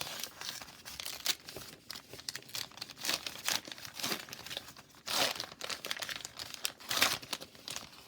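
Foil hockey card pack being torn open and its wrapper crinkled by hand, in irregular crackling rustles with a few louder rips.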